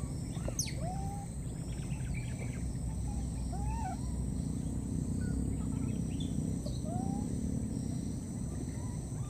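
Baby monkeys giving a few short, arching coo calls, a baby's call for its mother, over a steady low background noise.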